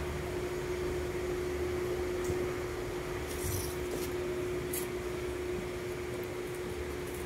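Steady room hum with one faint steady tone through it, and a few soft high ticks in the middle.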